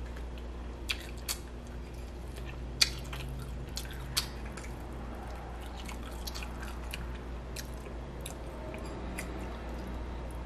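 Close-miked chewing and wet mouth smacks of a person eating saucy barbecue baby back ribs by hand, with sharp clicks scattered throughout and the loudest about three seconds in, over a steady low hum.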